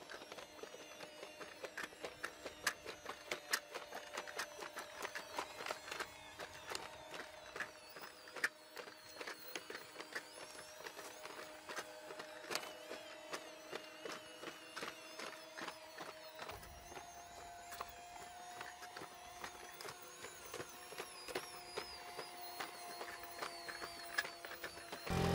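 Four-legged hydraulic walking robots (Boston Dynamics Spot) running, with a steady mechanical whine from their power units and many irregular sharp clicks from the legs and feet. The whine steps up a little in pitch about two-thirds of the way through.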